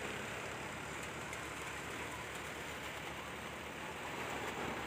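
Tractor-powered paddy thresher running steadily: a low engine drone under a steady hiss as threshed straw is blown out of the machine.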